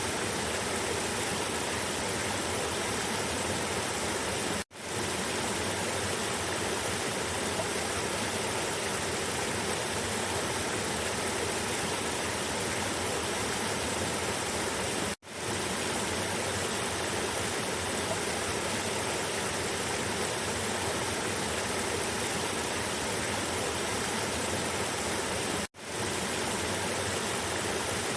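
Cascading river water rushing steadily, a dense even rush spread from low to high pitch. It cuts out for an instant three times, about ten seconds apart, and swells straight back in.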